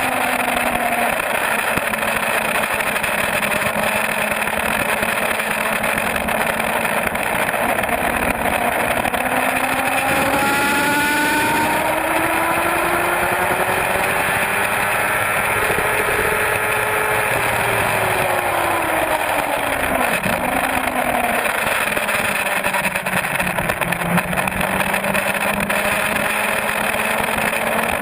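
Suzuki GSX-R750 sport bike's inline-four engine at speed, its pitch rising and falling with throttle and gear changes, with a couple of quick shifts in pitch. Heavy wind rush on the bike-mounted camera runs under it.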